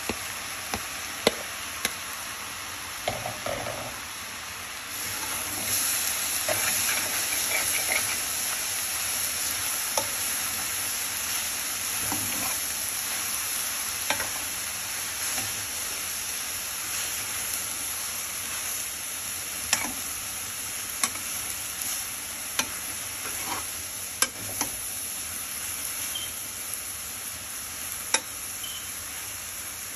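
Shredded beef with diced tomatoes, green peppers and green onions sizzling in a skillet, the sizzle growing louder about five seconds in. The food is stirred and turned throughout, with scattered sharp clicks of a metal utensil against the pan.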